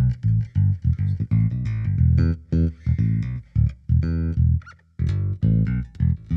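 Sampled jazz bass virtual instrument playing a plucked bass line, run through an EQ-match curve that shapes it toward a Fender Precision Bass's round, warm tone. Short notes in a steady rhythm, with a brief gap near the end.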